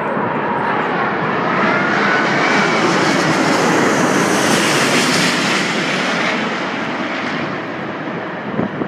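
Airbus A380-800 on final approach, its four Rolls-Royce Trent 900 turbofans passing low overhead: a loud jet rumble and rush that swells to its loudest about four to five seconds in as the plane passes directly above, then slowly fades as it moves away toward the runway.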